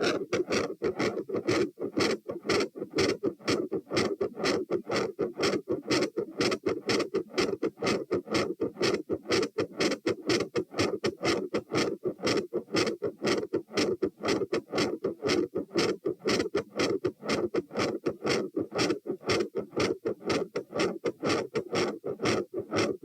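Fast, loud heartbeat heard through a stethoscope on the chest, at about 108–120 beats a minute, each beat with its two heart sounds. A murmur fills the gaps between them, which the recorder calls an intermittent machinery murmur with a gradually changing second heart sound.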